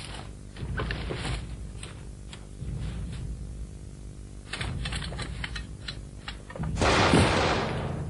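Gunfire in a forest combat exercise: scattered sharp shots at irregular intervals, then a much louder burst lasting over a second near the end.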